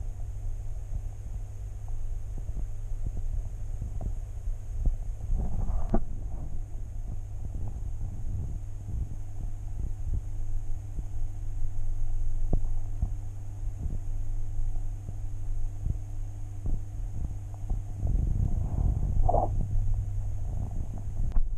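Steady low hum with faint higher tones over it, broken by irregular soft knocks and clicks, muffled as heard by a camera submerged in an aquarium. A couple of brief louder rustles come about six seconds in and near the end.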